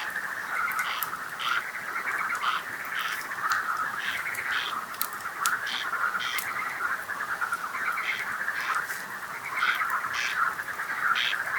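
A chorus of frogs trilling and croaking without a break, with shorter higher calls repeating about every half second. A campfire crackles with scattered sharp pops over it.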